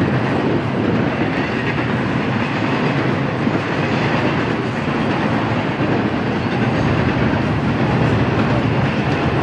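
Double-stack intermodal container cars rolling past on the rails: a steady, loud noise of steel wheels on track.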